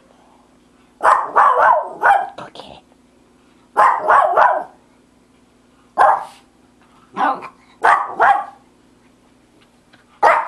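Jack Russell terrier barking in quick runs of short, sharp barks, up to four in a row with pauses between, over a faint steady hum.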